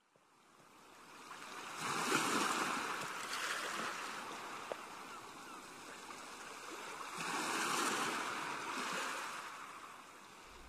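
Ocean surf: waves washing up onto a sandy beach, fading in from silence and swelling twice, about five or six seconds apart.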